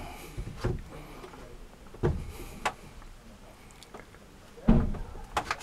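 Several dull knocks and thumps inside a small boat cabin, the loudest near the end.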